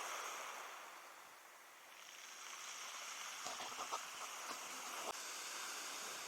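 Surf washing on the beach, a steady rush that ebbs and swells again, with a few light clicks just past the middle.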